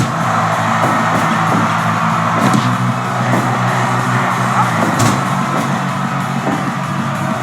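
Rock music with guitar over a held bass line, with a couple of short sharp knocks, about two and a half and five seconds in.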